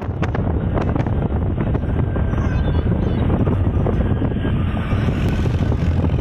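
A vehicle driving along a rough dirt track, with wind rushing over the microphone as a loud, steady rumble, and a few knocks in the first two seconds.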